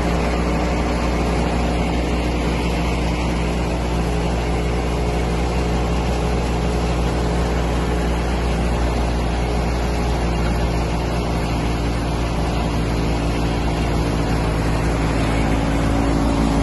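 Wheat thresher running steadily while being fed wheat, belt-driven by a Massey Ferguson 385 tractor's diesel engine working under load. The engine and the spinning threshing drum make one steady, unbroken running sound.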